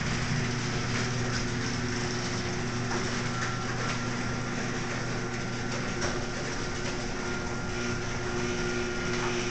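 Electric garage door opener running steadily with a low hum as it drives a heavy sectional door along its track. The door's torsion spring is broken, and bags of salt hung on ropes over pulleys are counterweighting it in place of the spring.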